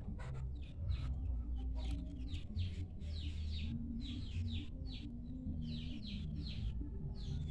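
Small birds chirping: many short, quickly falling chirps in rapid runs, over a steady low rumble.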